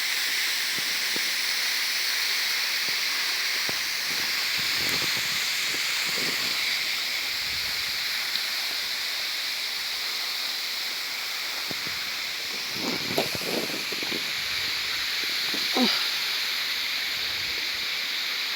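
Waterfall: a steady rush of falling water splashing into its pool.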